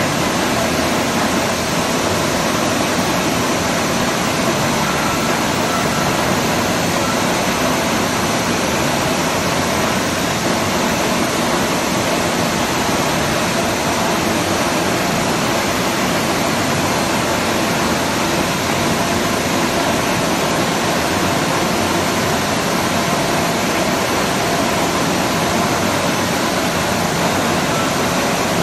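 Large bed-type milling machine running with a steady, even rushing noise, its swivel milling head travelling slowly along the machine.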